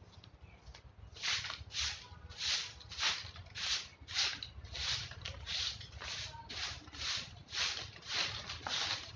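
Broom sweeping a concrete floor in quick, regular swishing strokes, a little under two a second, starting about a second in.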